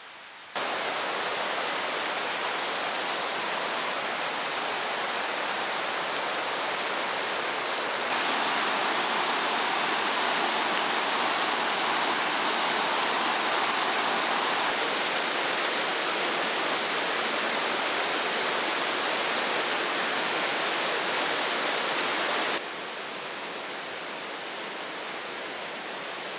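Steady rushing of running water from a mountain stream, jumping abruptly louder and softer a few times as the shots change.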